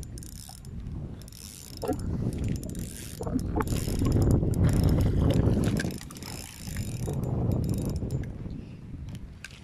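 Footsteps crunching and clicking over loose river gravel and stones, with wind rumbling on the microphone, heaviest in the middle.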